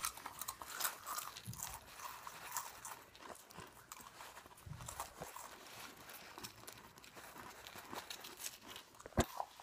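Someone chewing a mouthful of Goldfish crackers fast: a run of small, irregular crunches, with one louder knock near the end.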